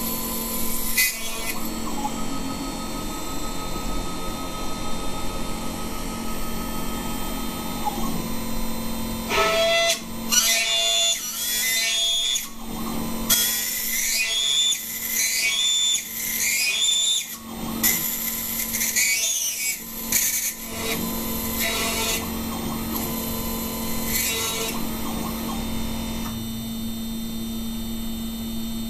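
2.2 kW water-cooled spindle of a 6040 CNC router running at a steady pitch while its end mill cuts a metal plate. High-pitched cutting noise comes and goes through the middle as the tool engages the metal.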